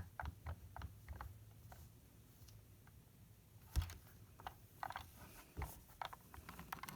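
Faint, irregular clicks and taps of LEGO plastic bricks being handled as hands push and try to slide parts of a LEGO puzzle box. A quick run of clicks comes in the first second or so and one louder knock a little under halfway.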